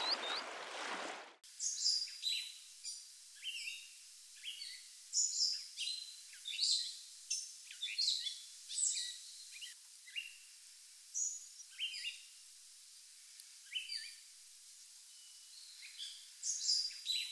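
Songbirds chirping and calling in the open, short whistled and chirped notes coming every second or so with quiet gaps between. A steady rushing noise under them cuts off about a second in.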